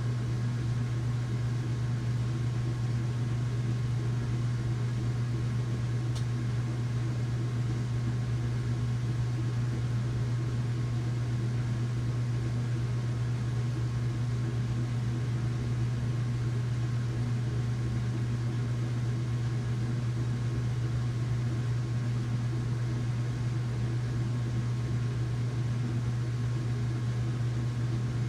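Washing machine running with a steady low hum and an even mechanical drone that does not change.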